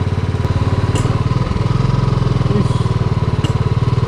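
Royal Enfield single-cylinder motorcycle engine running steadily under way, with a light click about a second in and again near the end. The bike's chain sprocket is worn, with broken teeth, and the rider says the chain slips and can't pull on climbs.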